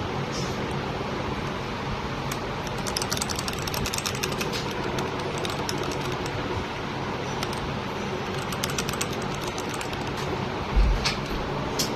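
Keycool KC84 mechanical keyboard with red linear switches being typed on: two runs of rapid key clicks and a few single keystrokes over a steady background hum, with a low thump near the end.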